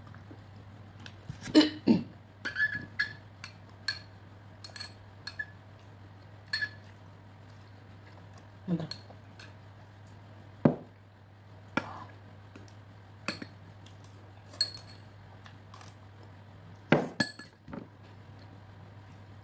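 Metal spoon clinking and scraping against a ceramic rice bowl while eating: a dozen or more irregular clinks, loudest about a second and a half in and again near the end.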